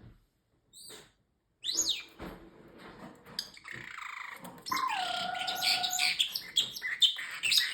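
Pet parrotlet chirping and chattering in short sharp calls. It holds one steady whistled note for about a second and a half around the middle, and the chirping grows busier near the end.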